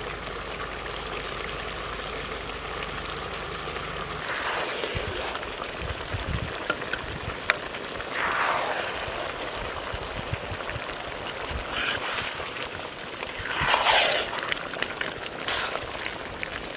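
Big pan of fish curry simmering with a steady hissing bubble. A ladle stirs and scrapes through the thick curry a few times in the second half.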